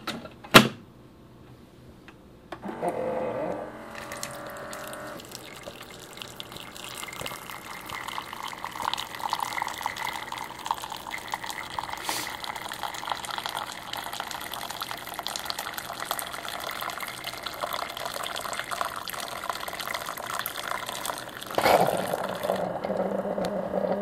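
Keurig B140 commercial coffee maker brewing hot water into a mug: a sharp click about half a second in, a short hum as the machine starts a couple of seconds later, then a steady stream of liquid pouring into the cup, with a louder burst near the end.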